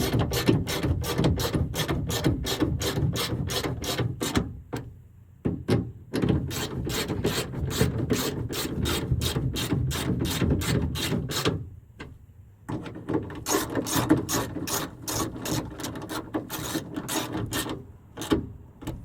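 Socket ratchet clicking at about four clicks a second as it runs 10 mm bolts in to fasten a sliding-door handle, in runs broken by short pauses about five and twelve seconds in.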